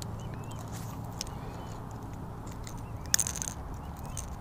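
Fishing pliers working a popper lure's treble hooks free from a bass's mouth: light metal clicks and rattles, with one sharp click about three seconds in, over a steady low background noise.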